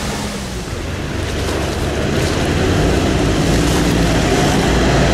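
A UAZ off-roader's engine running as it drives through a flooded, muddy track, with water churning and splashing around the wheels. It grows louder after about a second.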